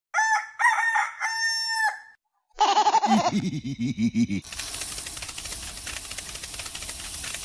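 A rooster crowing once, a full cock-a-doodle-doo. After a short pause comes a wavering pitched sound that slides down, then a steady rasping rustle.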